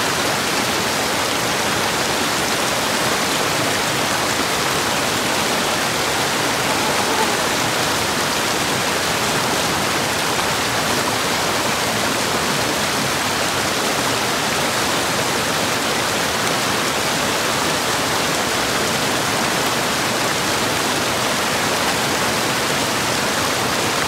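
Fast, shallow stream rushing over rocks in white-water rapids: a steady, unbroken rush of water.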